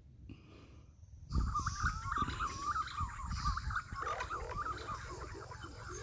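Birds calling outdoors, a dense chorus of short chirps that starts abruptly about a second in, with lower repeated call notes joining from about the middle and a low rumble underneath.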